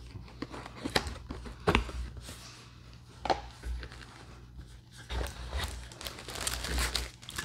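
A camera box being opened and unpacked by hand: packaging rustling and crinkling, with a few sharp taps and knocks as the box and its contents are handled.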